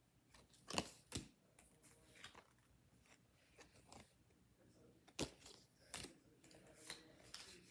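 Pokémon trading cards handled and slid against one another, giving a few short clicks and rustles over quiet room tone, the sharpest about a second in and again about five seconds in.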